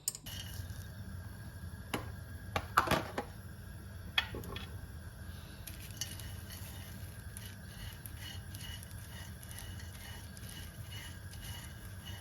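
Kitchen utensils and cookware clattering: a few sharp knocks and clinks, loudest about three seconds in, then lighter ticks over a steady low hum.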